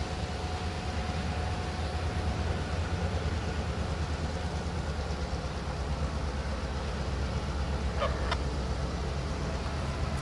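Distant EMD GP38-2 diesel-electric locomotive running as it approaches: a steady low engine rumble and hum. A short, sharper clank is heard about eight seconds in.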